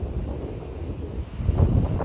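Wind buffeting the microphone in a low, gusty rumble that swells about a second and a half in.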